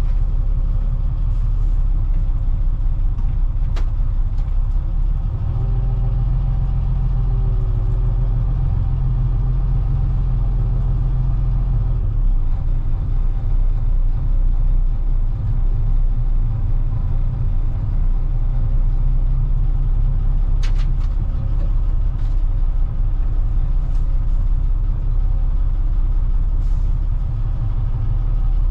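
Bedford YMQ coach's diesel engine running steadily at low speed, heard from the driver's cab as a continuous low drone. The drone swells for several seconds about five seconds in, and there are a few faint clicks.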